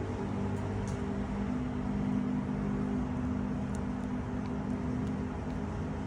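A steady low machine hum with a few held low tones, with a few faint clicks over it.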